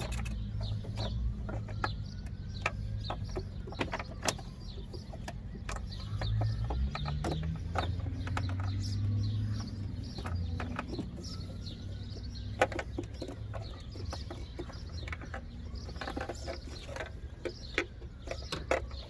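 Irregular sharp plastic clicks and rattles as the bulb sockets are twisted and pulled out of a Mitsubishi Lancer Evolution X tail light, over a steady low hum.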